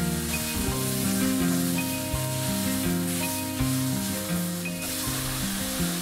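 Vegetables sizzling in a hot stainless steel skillet, a steady frying hiss, under background music of held notes.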